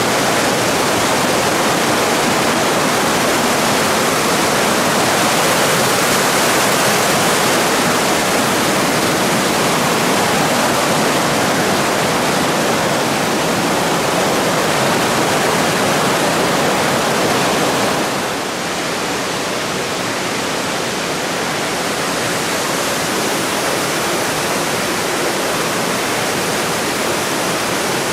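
Steady rushing of a mountain stream's water over rocks. About two-thirds of the way through it turns slightly quieter and duller, then stays steady.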